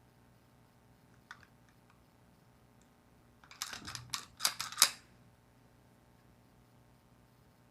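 Colt Defender .45 ACP stainless 1911-type pistol being handled: one faint click about a second in, then a quick run of sharp metal clicks and clacks around the middle, the last one loudest.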